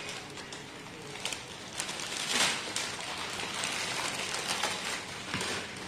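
Dry, crisp kori rotti (thin rice-wafer sheets) crackling as they are broken and handled: a run of small crackles, with a louder one about two and a half seconds in.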